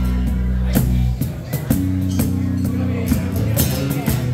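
Small live band playing an instrumental passage: acoustic guitar, electric bass guitar and cajon. Held bass notes run under regular cajon hits, and the playing thins briefly about a second and a half in.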